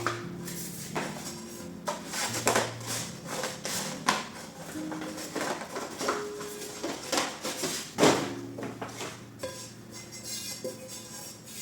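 Kitchen dishes and utensils being handled, a run of irregular clinks and clatters with one louder knock about eight seconds in, over soft, slow background music.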